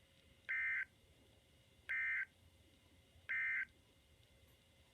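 Three short, identical squawks of the Emergency Alert System's two-tone digital data signal, about a second and a half apart, heard over a weather radio: the End of Message code that closes a broadcast warning.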